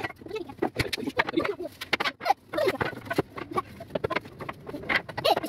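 Irregular wooden knocks and clicks as the pine slats and frame of a bunk bed are handled and tapped.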